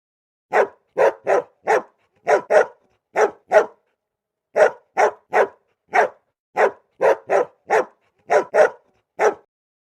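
A dog barking: a run of about nineteen short barks, many in quick pairs, with clean silence between them.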